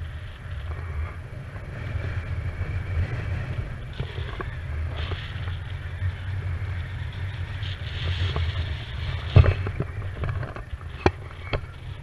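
Wind buffeting the microphone of a camera carried on a paraglider in flight: a steady low rumble, with a few sharp knocks in the second half.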